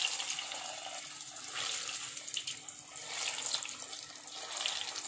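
Hot oil sizzling and bubbling in a deep frying pan around breadcrumb-coated potato balls. More balls are lowered in, and the hiss swells about three times.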